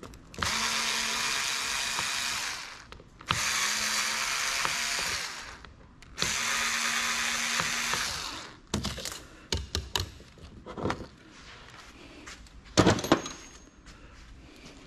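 A power screwdriver with a Torx bit runs three times for about two seconds each, backing out the screws that hold a hard drive's circuit board. Small clicks and knocks follow as the loosened screws and parts are handled, with one louder clack near the end.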